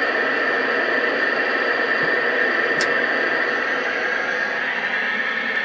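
Colt 295 CB radio's speaker hissing with steady receiver static while it listens on channel 19 for a reply, with one brief click about halfway through.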